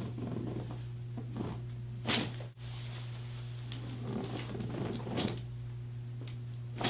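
A steady low hum with scattered soft knocks and rustles of handling; the sharper knocks come about two seconds in, about five seconds in and near the end.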